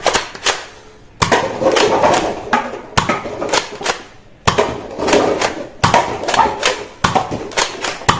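Toy gun being fired: a rapid series of sharp pops and clicks, often two or three in quick succession with short gaps between groups.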